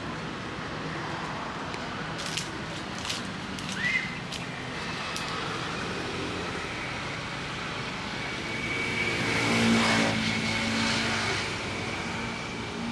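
A motor vehicle passes by, its engine sound swelling and then fading about two-thirds of the way through, over a steady outdoor background hum. Earlier there are a few sharp clicks and one brief rising squeak.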